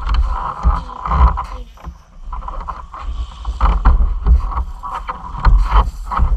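Wind rumbling on the microphone of a snowmobile-mounted camera, with irregular knocks and rustling as a child in a helmet and snowsuit shifts about on the stopped sled and climbs off.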